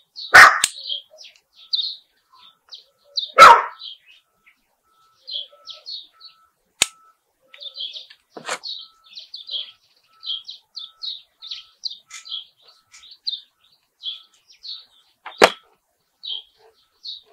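A dog barks loudly twice, about half a second in and again about three seconds later. Birds chirp steadily in the background, and a few sharp clicks and fainter yaps come later.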